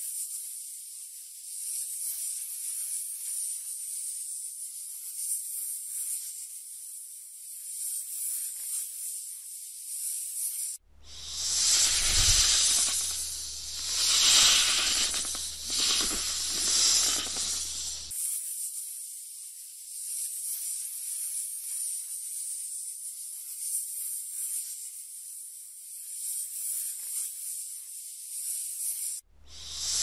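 Snake hissing. A thin, steady high hiss cuts off suddenly about eleven seconds in and gives way to louder, fuller hisses that swell and fade every two seconds or so, with a low hum under them. About seven seconds later it cuts back to the thin steady hiss.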